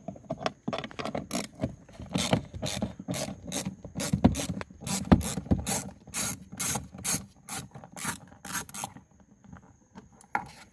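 A hand ratchet with a 7 mm socket clicking in quick runs as it backs out a small bolt behind a car's interior door handle. The clicks, about three a second, stop about nine seconds in, and one more comes near the end.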